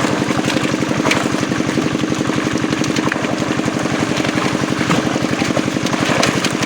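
A small engine running steadily with a fast, even chug, its speed unchanging, with a few faint clicks over it.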